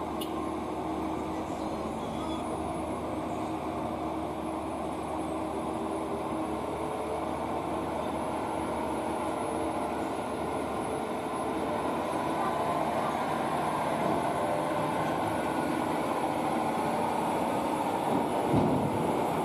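UD Quester truck's diesel engine running under load as the tractor-trailer rounds a hairpin at low speed, growing steadily louder as it comes closer.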